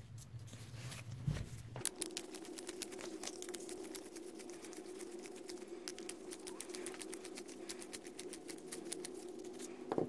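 Screwdriver backing out the screws that hold the bearing plate on a furnace draft inducer motor. It makes a long run of fast, even clicks over a steady hum, starting about two seconds in.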